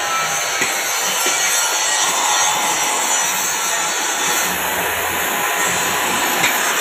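Gas brazing torch flame hissing steadily while it heats a steel pipe fitting for brazing.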